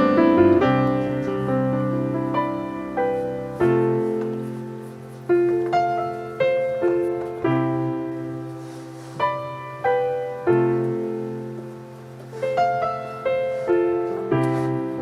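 Background music: a slow, gentle piano piece, its chords and notes struck and left to ring and die away.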